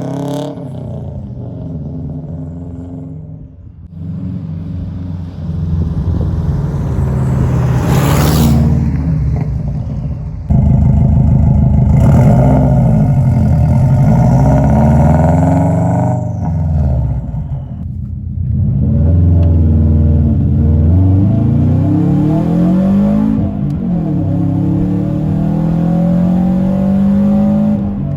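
Car engine heard through a cheap aftermarket turboback exhaust running without its silencer insert, stupid loud and deep-toned. The engine note climbs and drops back several times as it is revved and accelerated, and gets louder about ten seconds in.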